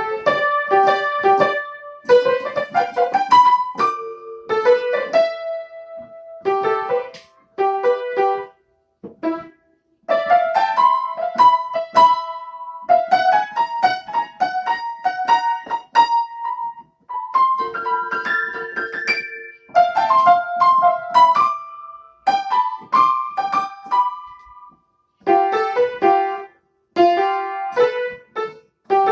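Piano keyboard played by someone still learning the tune: short phrases of chords and melody in the middle register, broken by brief pauses.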